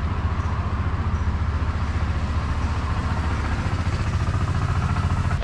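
An engine idling: a low, steady, evenly pulsing running sound.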